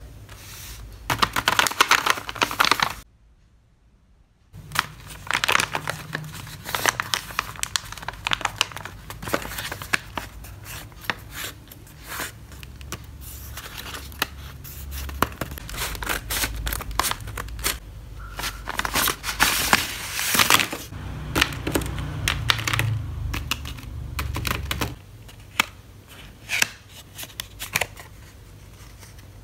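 Paper rustling and crinkling as a handmade paper blind bag is handled and opened and folded paper cards are pulled out and unfolded, with small tears and sharp taps and clicks. The sound drops out briefly about three seconds in.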